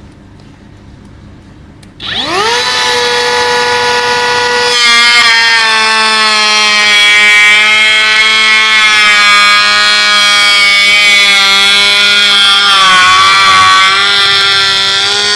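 Cordless 21V brushless hand planer starting up with a rising whine about two seconds in. From about five seconds it is planing wood: a loud, steady high whine over the rasp of the blades shaving, its pitch sagging slightly under load. The blade is set to its shallowest depth for a smoothing pass.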